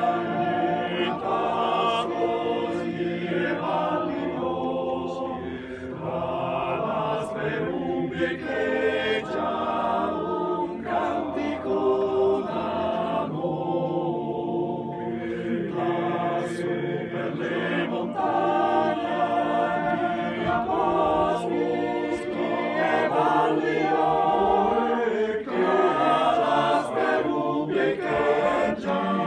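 Male voice choir singing a cappella, many men's voices together in a conducted song.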